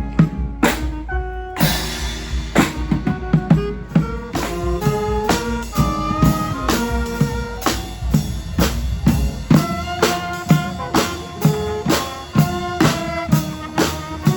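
Live street band playing: horn lines moving note to note over a steady drum beat with bass drum and snare.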